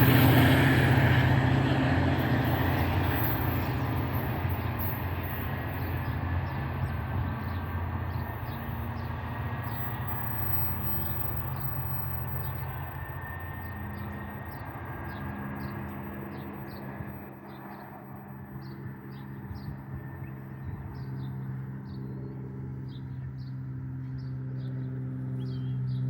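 NJ Transit train rumbling past and fading into the distance. Birds chirp repeatedly as it dies away, and a low hum swells again near the end.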